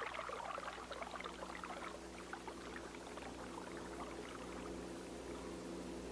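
Faint crackling, trickling water sound that thins out over the first three seconds, over a steady low hum.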